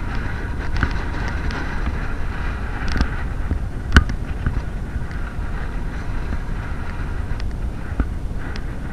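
Strong wind buffeting the microphone, a steady heavy rumble, broken by a few sharp knocks, the loudest about four seconds in.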